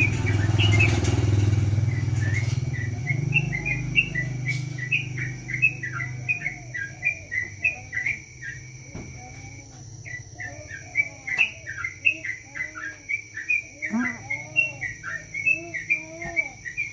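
Yellow-vented bulbul (trucukan) singing a long, rapid run of short chirping notes. A low engine hum runs under it for the first couple of seconds and fades out.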